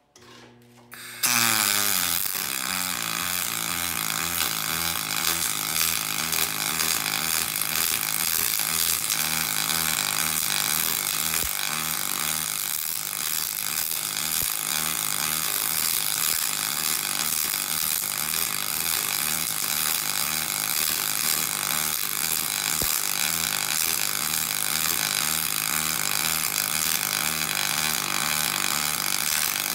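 Double-pulse MIG arc welding aluminum with 5356 wire, striking about a second in and then running steadily as a buzz with a regular low throb a few times a second from the double pulse. The arc is set cold enough for the aluminum piston's edge to build up rather than run out.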